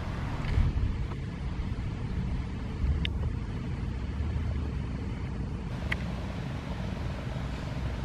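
Steady low outdoor background rumble, with two brief high chirps about three and six seconds in; no siren is sounding.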